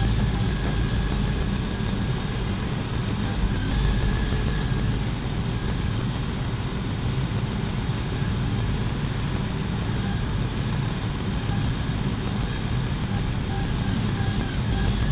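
A heavy engine running steadily: a continuous low rumble with a faint high whine whose pitch shifts a little a few times.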